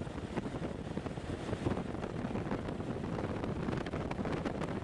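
Wind buffeting the microphone: a steady low rumble with scattered crackles.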